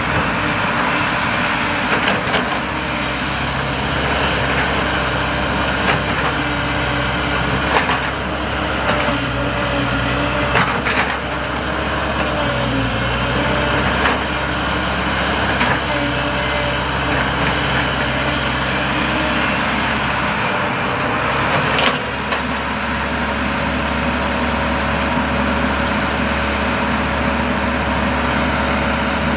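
Caterpillar 312 hydraulic excavator working: its diesel engine runs steadily under load, with a pitched hydraulic whine that bends up and down as the boom and arm move. A few sharp clanks from the bucket and linkage come through, the last about 22 seconds in.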